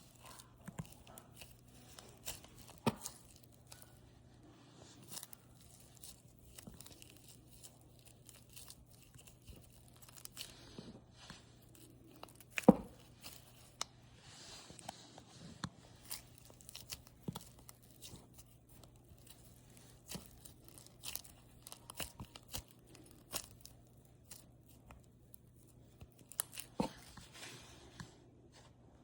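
Hands stretching, pulling apart and pressing a clay-mixed slime: faint, scattered small crackles, clicks and tearing sounds, the sharpest about halfway through.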